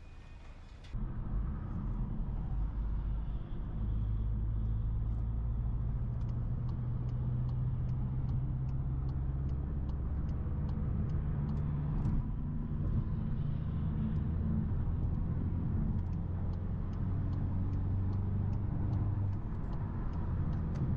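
Car being driven: a steady low engine and road rumble that starts about a second in, its pitch shifting a little with speed. A faint, regular light ticking, about two a second, runs through much of it.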